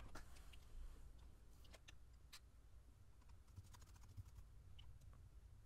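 Near silence: low room hum with faint, scattered small clicks.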